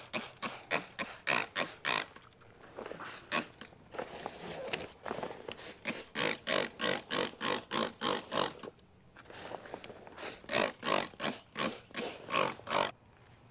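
Trigger spray bottle squirting isopropyl alcohol onto wader fabric, the trigger pumped in quick runs of short hissing sprays, about three a second, with brief pauses between runs.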